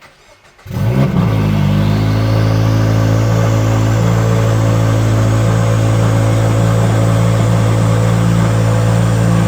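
Turbocharged second-generation Subaru BRZ's 2.4-litre flat-four starting: it catches about a second in and settles into a steady, loud cold-start high idle. It is loud because the front pipe and overpipe are not yet fitted, leaving the exhaust open.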